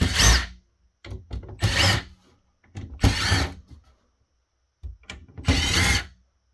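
Power screwdriver backing screws out of a switch motherboard, in four short bursts with the motor winding up and down each time.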